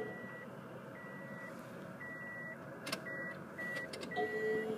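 1999 Ford Escort with the ignition switched on but not cranked: a high warning chime beeping over and over, two light clicks, and a brief low hum near the end that is taken for the electric fuel pump priming, which the owner judges to be working.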